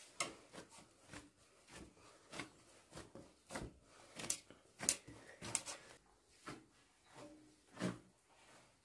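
Hands kneading a large mass of bread dough in a metal basin, making an irregular series of short slaps and presses, about two a second.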